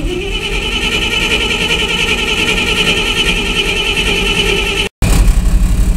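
Starter motor cranking the Dodge's 318 V8, a steady whine with rapid even pulsing, as the truck is jump-wired to start after sitting ten years. Near the end the sound breaks off for an instant and comes back louder and deeper.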